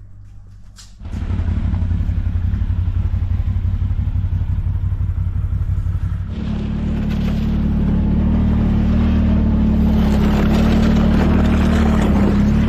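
Engine of a tracked CFMOTO ATV, starting about a second in and running at a steady low idle. About six seconds in the pitch steps up and the engine runs harder as the machine moves off across the ice, getting gradually louder.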